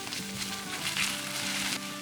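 Background music with held notes, over a hissing kitchen noise that swells about a second in and fades near the end.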